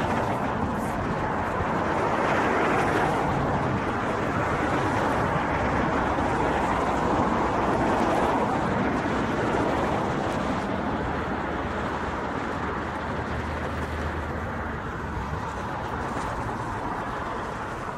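Road traffic noise, a steady rush of passing vehicles that grows louder over the first few seconds and slowly fades in the second half.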